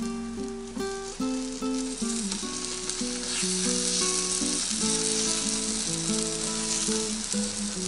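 Takoyaki batter sizzling and frying in a hot diamond-coated takoyaki plate, the sizzle growing louder about three seconds in, under background music with a melody of held notes.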